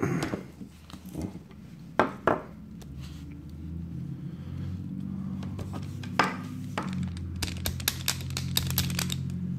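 Small steel parts of an Ithaca Model 37 shotgun's trigger group clicking and knocking as it is handled: two sharp clicks about two seconds in, another near six seconds, then a run of quick light clicks near the end. A steady low hum sits underneath from a few seconds in.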